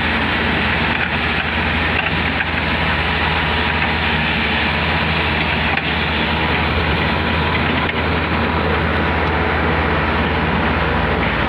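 Diesel engine of a Volvo wheeled excavator running steadily close by, a constant low hum with no change in speed.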